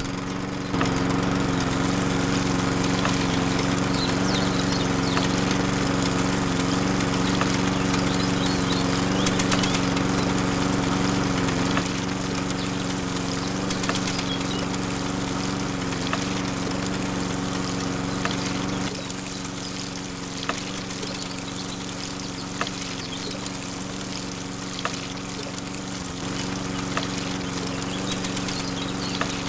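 Small electric motor of a toy water pump, switched on at the start, running with a steady hum while water pours from its hose onto wet sand.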